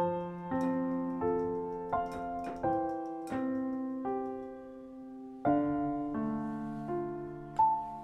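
Background piano music: a slow melody of single notes and chords, each struck and left to ring and fade.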